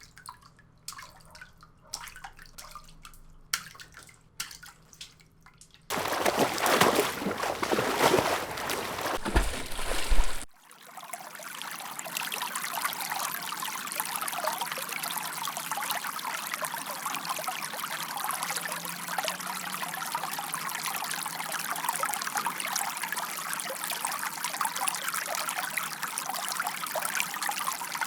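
Water sound effects in sequence: scattered drips and small splashes, then a loud rush of pouring water that cuts off abruptly about ten seconds in, then steady trickling water.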